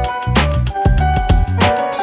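Background music with a steady drum beat: a heavy kick drum, crisp percussion hits, and sustained instrument notes above.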